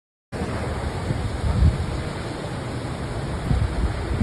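Strong tornado wind buffeting the phone's microphone: a loud rushing noise with gusty low rumbles, starting abruptly just after the start following a moment of silence.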